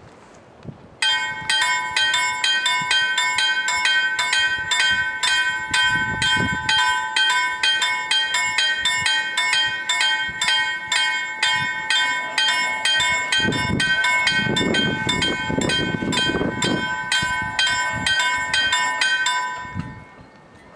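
Level-crossing warning bells ringing in rapid, evenly repeated strikes, about three a second, signalling an approaching train. They start about a second in and stop near the end, once the barriers are down.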